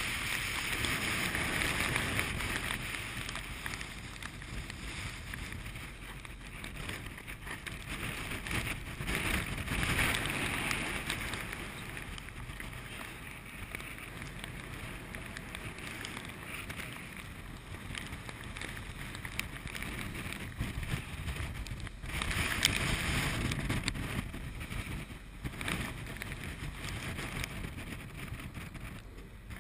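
Strong wind buffeting the microphone over heavy seas rushing and breaking against a ship's steel bow. The sound rises in a few louder surges and falls back between them.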